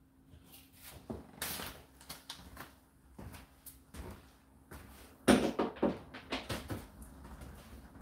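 Irregular knocks and clicks, with a louder cluster of clatters about five seconds in.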